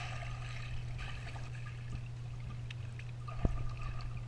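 Pool water heard through an underwater camera: a muffled rush of bubbles right at the start as a child plunges in, then soft bubbling as she swims, over a steady low hum. A single dull knock comes about three and a half seconds in.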